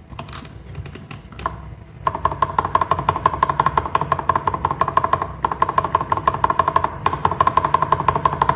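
Backspace key on an Akko 3098B mechanical keyboard with lubed and filmed Prevail Epsilon linear switches (nylon housing, POM stem) and thick OEM keycaps. It is pressed singly a couple of times, then tapped rapidly and evenly from about two seconds in. The sound is very clean and thocky.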